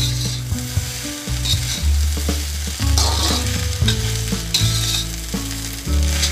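Steel spatula scraping and stirring rice in a hot iron wok, the food sizzling. There are scrapes about every second and a half over a low steady hum.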